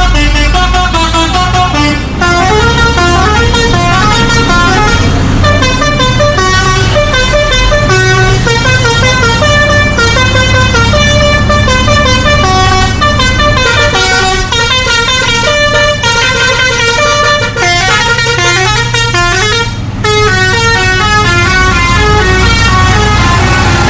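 Indian bus's musical horn playing a tune of quick stepping notes, rising and falling in pitch, over the low rumble of the bus engine.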